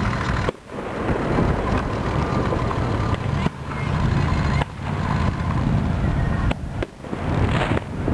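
Fireworks going off over a lake, heard through a heavy low rumble of wind on the microphone; the sound drops out suddenly several times and swells back.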